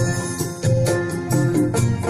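Instrumental interlude of a Hindi film song playing as a backing track, with a steady beat under sustained melody lines and no singing.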